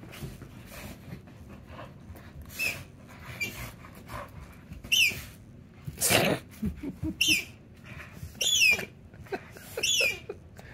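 A dog chewing a plush squeaky toy: soft mouthing at first, then from about five seconds in a string of short, high squeaks that fall in pitch, roughly one a second, with low grumbling under the later ones.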